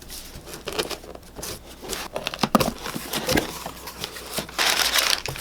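Packaging being torn open and crinkled by hand, with scattered rustles and clicks and a longer tearing rustle near the end.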